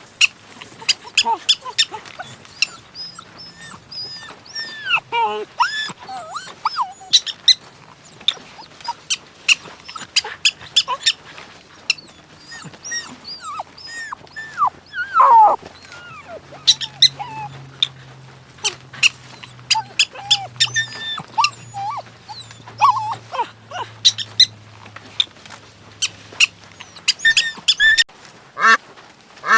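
Dogs yelping and whining, with many short, high calls that bend up and down in quick succession throughout. A faint low hum runs underneath through most of it.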